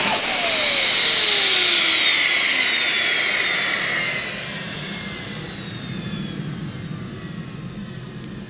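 Home-made centrifugal-compressor gas turbine jet engine spooling down after its fuel is shut off. Its high whine glides steadily down in pitch and the rush of the exhaust fades over about five seconds, leaving a low steady hum.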